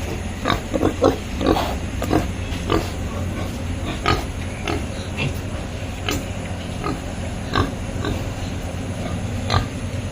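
Piglets grunting in short, irregular calls, many in quick succession, over a steady low hum.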